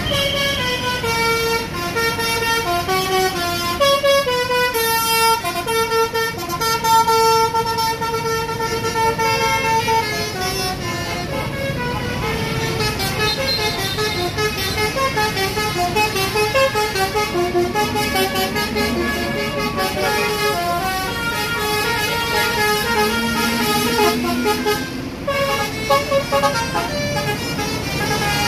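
Tour bus 'telolet basuri' musical air horn playing a tune: a series of held notes stepping up and down in pitch, some long and some short, over the bus engine running.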